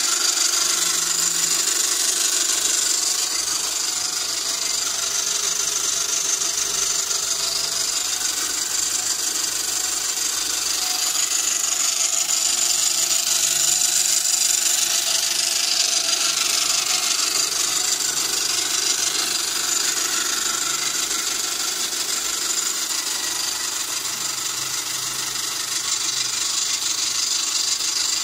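A small electric motor driving an old pillar drill through bicycle and lawnmower chains and sprockets on a sewing-machine treadle stand, running steadily with a mechanical whir.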